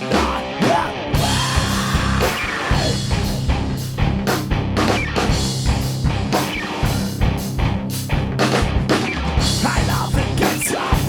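Instrumental break of a heavy rock song: a driving drum kit and electric guitars, with no singing.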